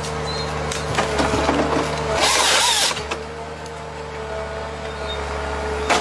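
Wheeled forestry harvester's engine and hydraulics running steadily, with a loud burst of under a second, about two seconds in, as the harvester head's chain saw cuts through the tree trunk. A few sharp knocks from the head gripping the stem.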